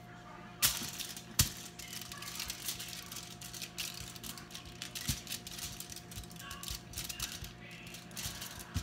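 Kitchen handling noise: two sharp knocks about a second in, then a dense, irregular run of crackling clicks, over a faint steady hum.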